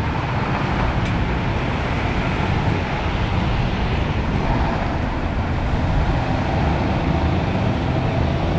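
Steady street traffic noise: a continuous low rumble of passing road vehicles.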